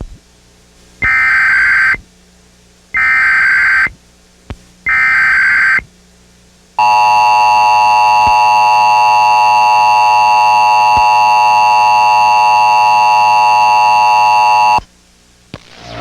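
Emergency Alert System tones: three shrill one-second bursts of the digital header data, then the steady two-tone attention signal held for about eight seconds before it cuts off abruptly. They signal the start of a severe thunderstorm warning.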